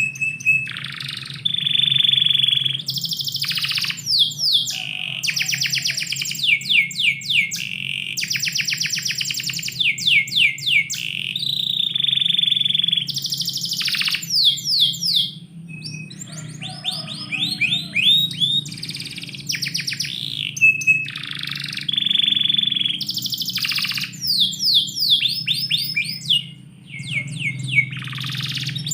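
Domestic canary singing a long, nearly unbroken song of fast trills, rapidly repeated notes and sweeping whistles, with a short pause about halfway through. A steady low hum runs underneath.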